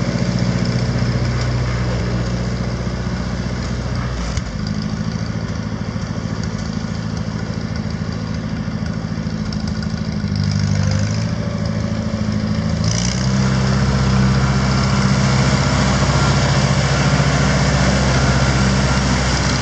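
Ford 960 tractor's four-cylinder engine running steadily at a low, even speed. There is a single short knock about four seconds in, and the engine gets louder about two-thirds of the way through.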